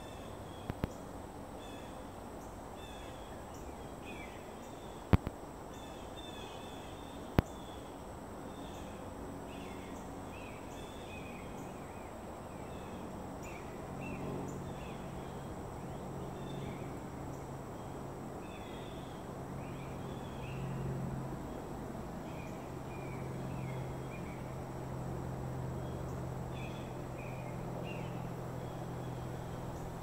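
Outdoor riverside ambience with small birds chirping and singing in short repeated calls, and two sharp clicks about five and seven seconds in. About halfway through a low motor hum comes in and grows louder.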